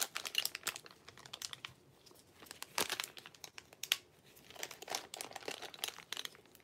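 Plastic coin packaging crinkling, with small irregular clicks and taps, as coins are handled with gloved hands.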